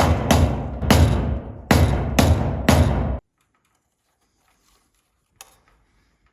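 Background music with a sharp percussive beat over a deep bass line, cutting off abruptly about three seconds in. Near silence follows, with one faint click.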